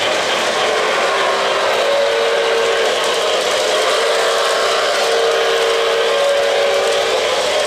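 Model steam locomotive's electronic sound system blowing a deep, melodious whistle in two long blasts, over the steady rumble of an O-gauge train rolling along the track.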